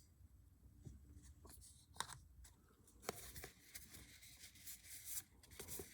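Faint rustling and light ticks of baseball cards being handled and slid through by hand, with sharper clicks about two and three seconds in.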